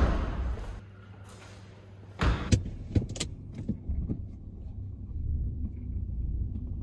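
A sudden thump, then a car door shutting with a few sharp clicks and knocks about two seconds in, followed by a car engine running with a low, steady rumble heard from inside the cabin.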